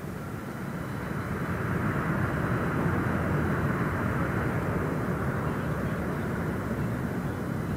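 Jet engine roar of an Airbus KC-30A (A330-200 MRTT) tanker rolling out on the runway after landing, from its two General Electric CF6-80E1 turbofans. The roar swells about a second in, is loudest through the middle, and eases slightly near the end.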